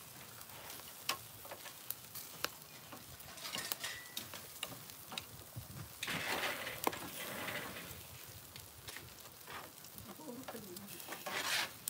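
Meat sizzling on a hot barbecue grill, with sharp clicks of metal tongs as the pieces are turned. The sizzle swells louder about halfway through and again near the end.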